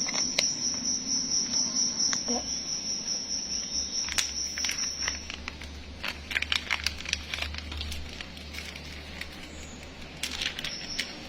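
A steady, high insect trill that stops about five seconds in, with scattered clicks and light crinkling as dried herbs are put into a bottle.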